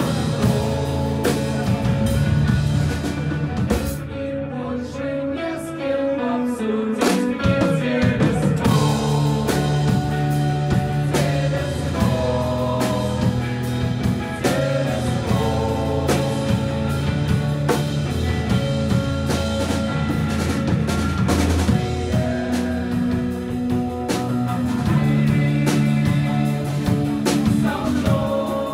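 Live rock band playing: electric guitar and drum kit, with a man singing into a microphone.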